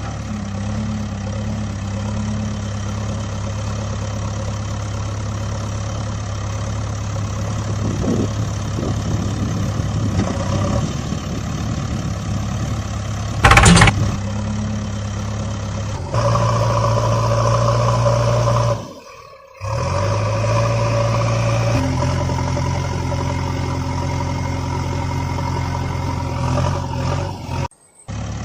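Engine idling with a steady low hum that shifts in pitch and character at several sudden changes. There is one very loud, short burst about halfway through, and the sound drops out briefly twice later on.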